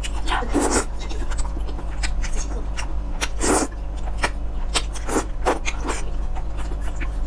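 Close-miked eating sounds: noodles slurped twice, about half a second in and again about three and a half seconds in, with short wet chewing and lip clicks between.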